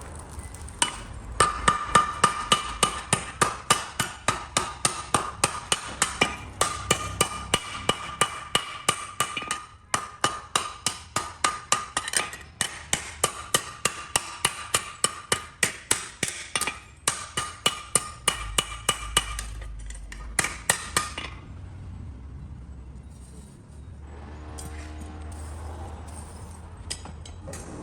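Hand hammer striking metal on an anvil, about three to four blows a second with a ringing metallic tone, in several runs with short pauses; the hammering stops about 21 seconds in.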